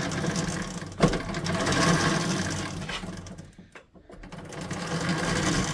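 Snow blower drive chain, a No. 41 roller chain just rejoined with its master link, rattling steadily over its sprockets as the drive is turned, with a sharp metal click about a second in.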